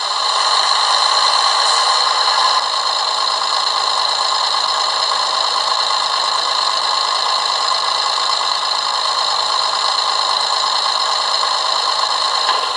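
Model diesel railcar engine sound from a Hornby TXS sound decoder, played through the small speaker of a Dapol Class 121 'bubble car' as it runs. A steady running note, a little louder for the first two seconds or so, then holding even.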